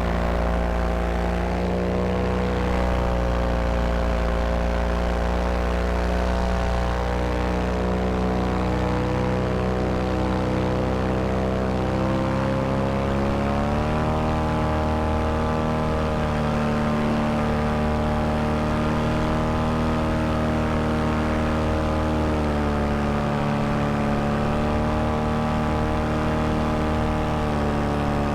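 Vittorazi Moster 185 single-cylinder two-stroke paramotor engine and propeller running in flight, with a steady drone whose pitch rises about halfway through as the throttle opens, then dips briefly twice near the end.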